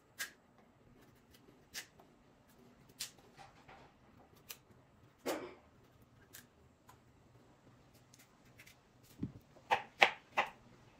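Knife peeling the skin off a Jamaican pumpkin: scattered short scrapes and taps, with a quick run of louder ones near the end.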